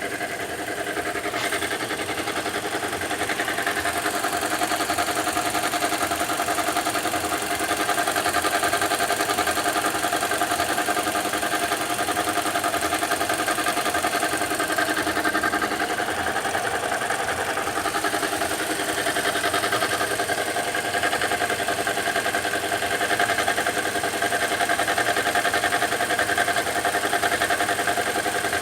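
2015 Toyota Corolla engine running steadily at idle, with a noise the owner hears as abnormal but cannot identify.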